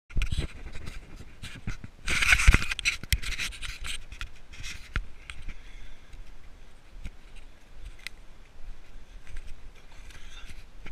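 Scratching, scraping and knocking of something rubbing against the camera and its microphone, in a loud rough burst about two seconds in, then softer rustling and scattered clicks.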